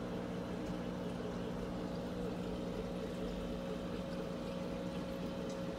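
Reef aquarium's pump running with a steady hum under an even rush of circulating water.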